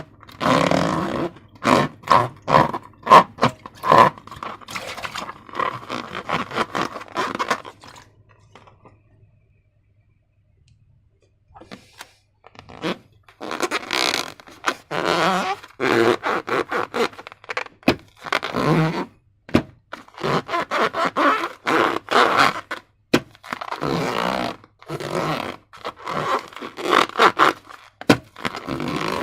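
Slime being worked by hand with balloons: irregular scraping and rubbing noises in quick bursts, stopping for about four seconds midway before starting again.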